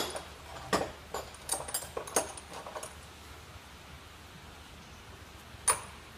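Faint, scattered clicks and rustles of handling, several in the first three seconds and one more near the end, over quiet garage room tone.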